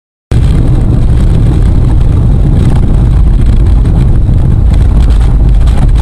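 A car in motion heard from inside: a loud, steady rumble of engine and road noise that cuts in suddenly just after the start.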